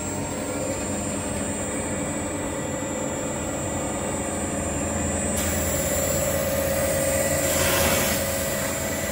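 SDA-500M end sanding and milling machine running with a steady machine hum as its motors spin the sanding drums and its roller feed carries an MDF cabinet door through. Over the last second or two a louder hiss swells and fades, the sound of the door's edge being sanded.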